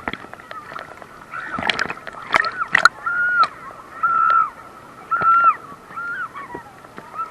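Muffled water sloshing and knocking against an action camera's waterproof case as it moves in and out of the sea water, with a few short ringing, arching tones from the case about a second apart in the second half.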